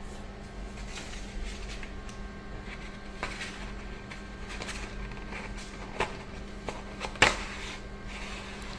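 Steady machine hum with a low rumble, broken by a few sharp knocks; the loudest comes about seven seconds in.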